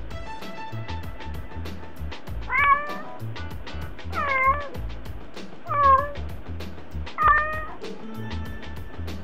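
A domestic cat meowing four times, about a second and a half apart, each call rising and then falling in pitch, over background music with a steady beat.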